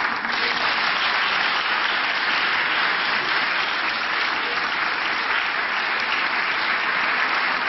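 Audience applauding steadily, breaking out suddenly at the close of a speech.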